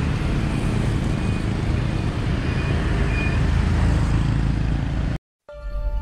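Town street traffic ambience with motorbikes on the road, a steady noisy rumble heavy in the low end. It cuts off suddenly about five seconds in.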